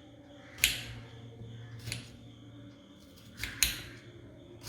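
Kitchen knife cutting a peeled raw potato into strips for French fries, one sharp cutting stroke roughly every second.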